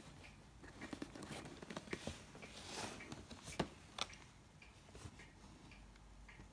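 Cardboard box being handled and turned over: faint rustling and scraping of the card with a few sharp taps, the loudest tap a little past halfway.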